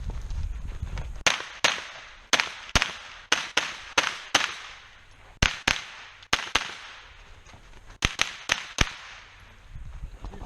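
A rifle fired in a fast string during a timed match stage: about sixteen sharp shots, many in quick pairs, with a short pause before the last burst of four.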